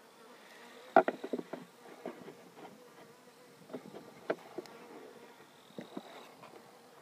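Honeybees buzzing around the hive, a faint steady hum. Over it come sharp clicks and knocks, a loud cluster about a second in and more around four and six seconds in.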